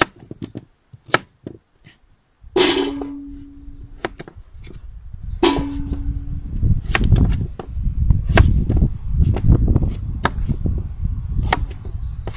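Knife cutting root vegetables into bite-sized pieces on a cutting board: a few sharp knocks. Then two short hums, and from about halfway a loud low rumble with scattered knocks.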